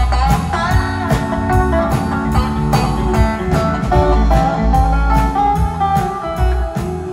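Live country band playing an instrumental passage without vocals: pedal steel guitar and electric guitar over bass and a steady drum-kit beat, with some sliding notes.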